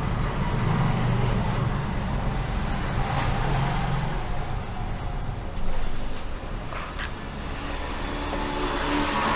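Steady low background rumble and hiss, with a brief knock a little past the middle.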